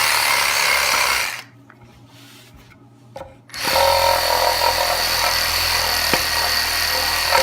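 Electric reciprocating saw with its blade teeth cut off, fitted with sandpaper, running as a reciprocating sander along a wooden juice groove. It stops about a second in and starts up again about two seconds later.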